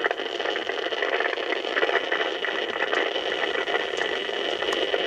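CB radio receiver on the 11-metre band giving out a steady rush of static hiss with fine crackling, which the operator takes for static rain (precipitation static) or a solar flare.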